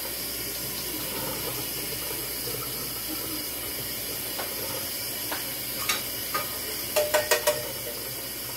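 Kitchen faucet running steadily into a stainless steel sink while canned string beans are rinsed in their can. From about halfway in come a few sharp clicks, then a quick run of four louder metallic clinks near the end as the can knocks against a metal saucepan to tip the beans in.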